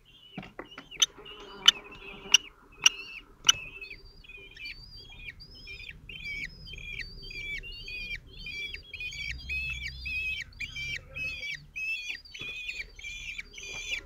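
Common kestrel nestlings giving a rapid run of short, high begging calls, about two a second, growing louder as an adult comes into the nest box. Five sharp knocks sound in the first few seconds.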